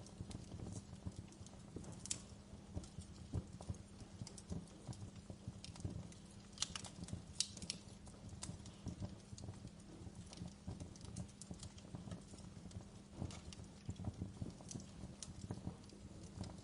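Wood fire crackling: irregular pops and snaps, a few sharper ones, over a steady low rumble.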